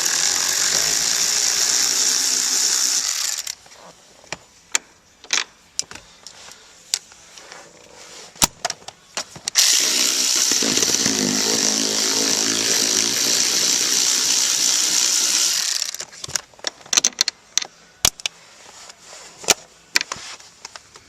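A small electric motor running in two long spells, the first about three and a half seconds and the second about six seconds, with scattered sharp clicks and knocks between and after them.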